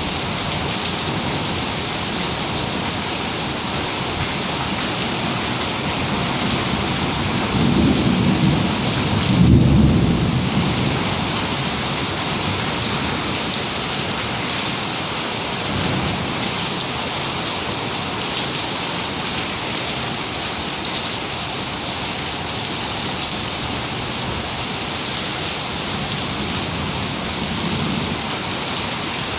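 Steady rain hissing, with low rolls of thunder. The loudest roll comes about a third of the way in, and fainter ones follow later.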